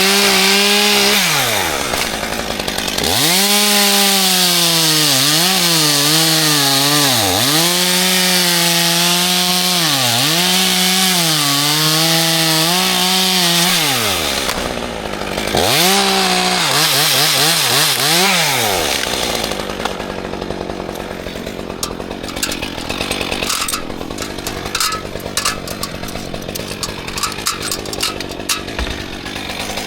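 Chainsaw cutting into dead oak: the engine revs up, then runs at full throttle with its pitch dipping again and again as the chain bites into the wood, through two cuts with a short pause between. After about two-thirds of the way through the saw stops and only scattered clicks and rustling remain.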